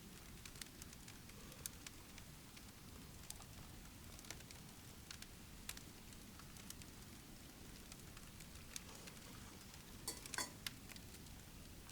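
Wood fire crackling in a titanium wood stove: sparse, irregular pops over a faint low hush, with a quick cluster of crackles near the end.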